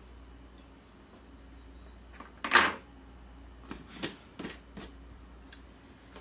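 Kitchen handling sounds: one loud clatter about two and a half seconds in, then several light clicks as the plastic lid is screwed back onto a mayonnaise jar.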